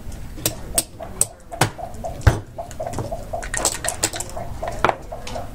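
Plastic backgammon checkers clacking as they are moved and set down on the board: a series of sharp separate clicks, with a heavier knock about two seconds in and a quick cluster of clicks a little later.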